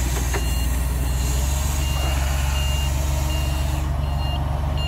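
Forklift engine running with a steady low drone while its warning beeper sounds short, high, evenly spaced beeps, about three every two seconds.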